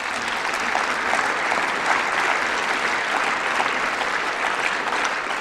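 Applause from a large seated audience of parliament members: many people clapping steadily, easing off slightly near the end.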